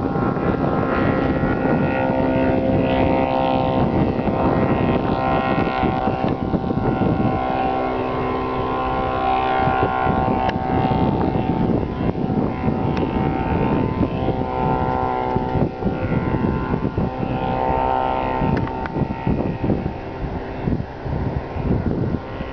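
Engine and propeller of a homebuilt propeller airplane droning as it flies overhead, its pitch shifting as it passes, with wind buffeting the microphone.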